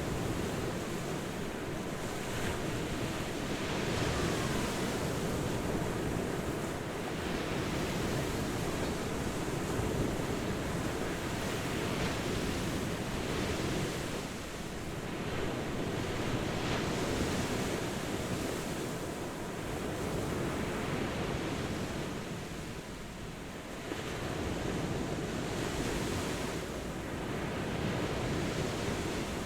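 Ocean surf breaking on a beach: a steady wash of waves that swells and ebbs every few seconds.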